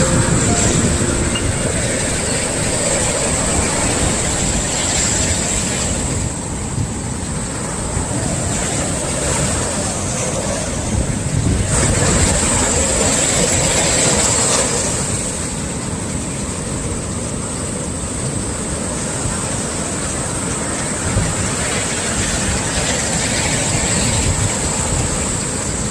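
Swell waves breaking on the shore: a continuous rush of surf that swells as sets come in, with the biggest wave breaking about twelve seconds in.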